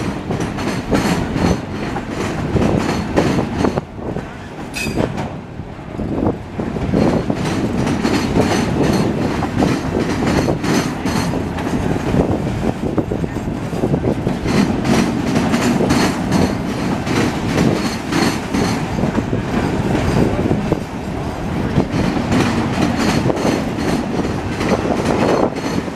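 CSX auto rack freight train rolling past: a steady rumble of steel wheels on rail with rapid, repeated clicking as the wheels pass over rail joints.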